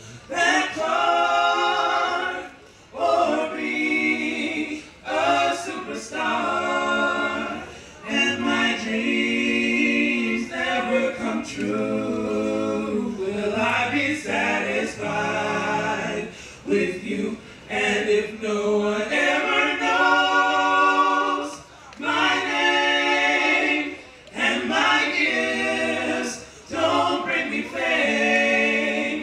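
Small mixed vocal group of four, men's and women's voices, singing gospel a cappella in harmony. The song is sung in held phrases with short breaths between them.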